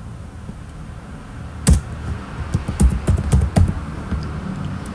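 Keystrokes on a computer keyboard: a first key press about a second and a half in, then a quick run of separate taps typing a short command.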